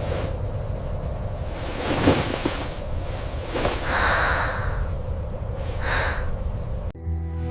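A steady rushing noise with a low rumble, swelling into brief whooshes about two, four and six seconds in.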